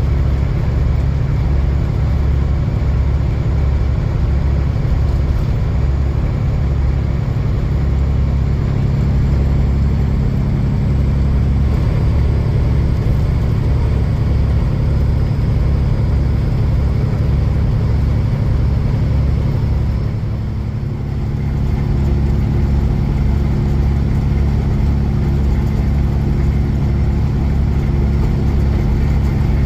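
Semi truck's diesel engine and road noise heard from inside the cab while driving: a steady low drone with a throb underneath. The drone dips briefly about two-thirds of the way through, then picks up again at a slightly different pitch.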